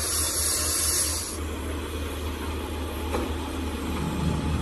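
A heavy engine running steadily at a low pitch under a background hiss; the hiss thins out about a second and a half in.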